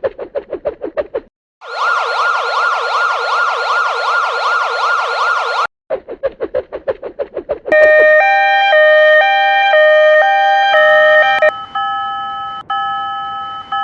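Cartoon railroad-crossing alarm sound effects in quick succession: rapid beeping pulses, a fast-warbling siren for about four seconds, more rapid beeps, then a two-note electronic chime alternating back and forth that ends in ringing tones.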